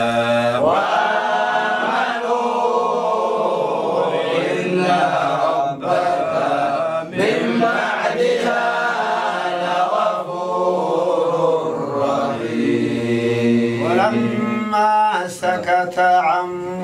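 A man reciting the Quran in slow, melodic tajwid style, holding long drawn-out notes that rise and fall in pitch.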